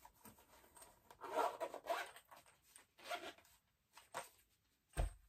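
Unboxing packaging being handled: a few short bursts of rustling and scraping, then a single thump near the end.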